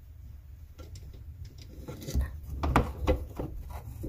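Hand screwdriver turning a screw through a white plastic bracket into the cabinet side: a run of light clicks and scratchy creaks starting about two seconds in.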